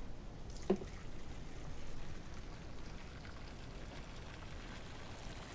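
A short metal click as the ball valve on a stainless brew kettle is turned, then a faint steady rush of hot sparge water draining out through the hose.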